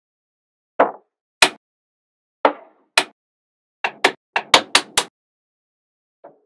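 Small magnetic balls snapping together one at a time, each a sharp click. The clicks come irregularly, about ten in all, with a quick run of six near the middle.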